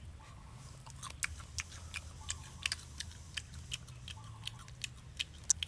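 Crisp, irregular crunches of roasted spiders being chewed, a few a second, over a low steady hum.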